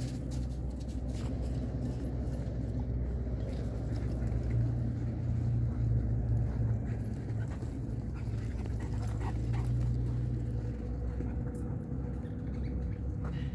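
Dogs running and playing together on bare dirt, over a steady low rumble that drops away about eleven seconds in.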